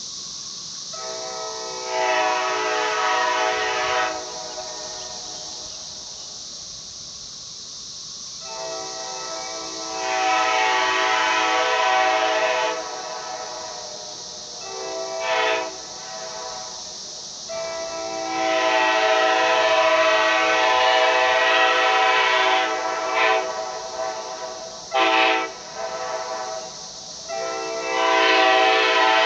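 Nathan Airchime K5LA five-chime train horn, bells 1, 2, 3A, 4A and 5 all facing forward, sounding its chord in about six blasts. The long blasts last two to five seconds and start softer before swelling to full volume; two are short toots. A steady high hiss runs underneath.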